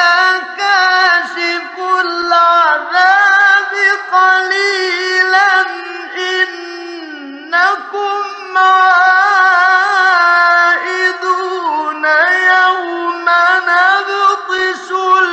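A man's voice in melodic mujawwad-style Quran recitation, holding long drawn-out notes in a high register with fine gliding ornaments. About halfway through it eases into a softer, falling phrase, then rises again. The sound has the narrow, dated quality of an old radio recording.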